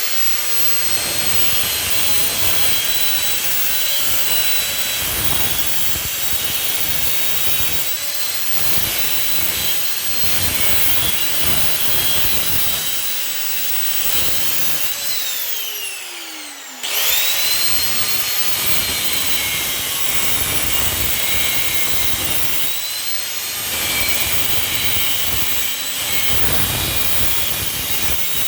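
Angle grinder cutting into scrap metal to take the brass off, its motor whining steadily at high speed. About halfway through the whine falls away as the grinder winds down, then it spins straight back up and cuts on.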